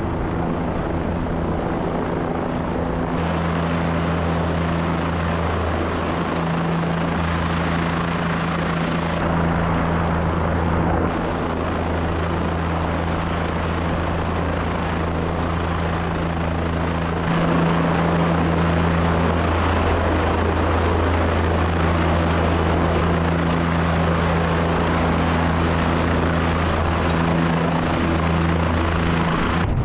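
Helicopter running steadily in flight, a constant low rotor and turbine hum with engine noise over it, growing a little louder about two-thirds of the way through.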